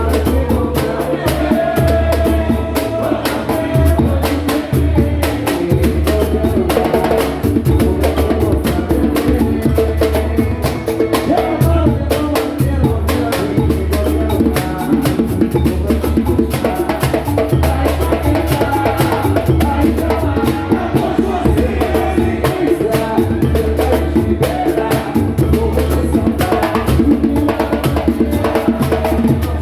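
Samba and pagode music: dense, steady percussion over a deep low pulse.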